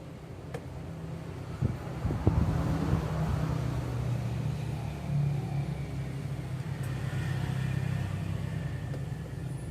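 A motor vehicle's engine running close by, a low rumble that swells in over the first couple of seconds and then holds steady, with a few sharp clicks near the start.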